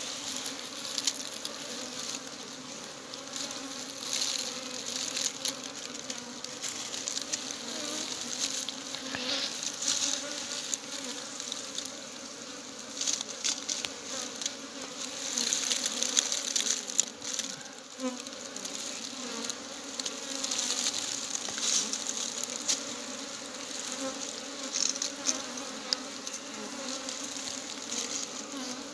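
Honeybees buzzing steadily in a cloud around a wild comb as it is cut out, with scattered crackles and rustles from the comb and dry leaves being handled.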